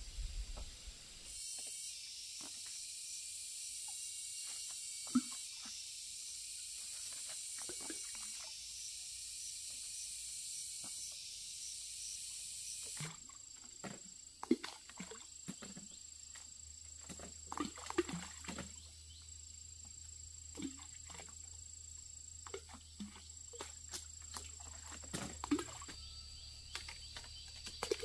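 Steady high-pitched insect buzzing, which thins to a single high whine about halfway through, with scattered light knocks and rustles.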